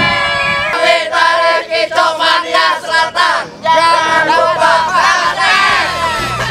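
Music with several voices singing together, choir-like.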